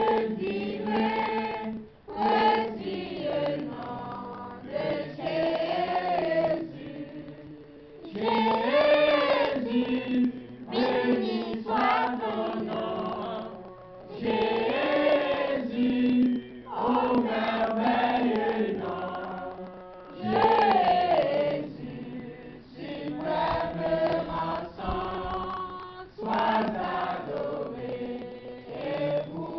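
Congregation singing a worship song together, with a man's voice leading on a microphone, in sung phrases of a few seconds broken by short breaths.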